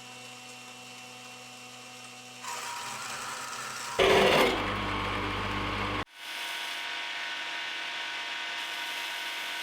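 Workshop tool noise over a steady hum, with a brief louder burst about four seconds in and sudden changes in level.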